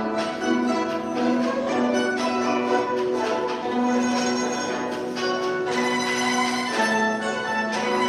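Guzheng ensemble playing a five-part arrangement: many plucked zither strings sounding together over a held, repeatedly changing low note.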